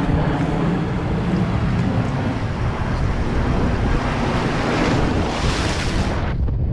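Wind buffeting the microphone over waves washing against shoreline rocks. A wave surge swells louder about five seconds in.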